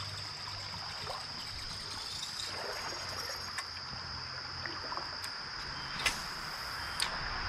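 Quiet creek ambience: a steady high-pitched insect trill over a faint trickle of water, with a few sharp clicks.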